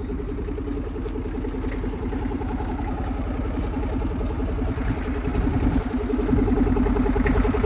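Old tractor engine running steadily at low revs, growing a little louder in the last couple of seconds.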